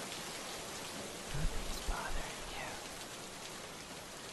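Steady rain ambience, an even hiss of falling rain, with a brief low rumble about a second and a half in.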